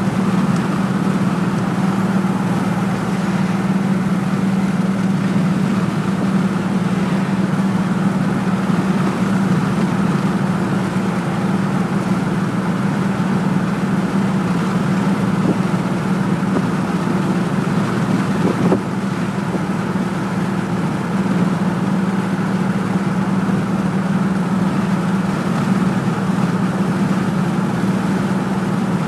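Steady road and engine noise heard inside a car's cabin while driving on a highway, a constant low drone. A single brief knock about two-thirds of the way through.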